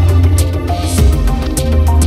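Background music with a heavy bass line and a steady beat.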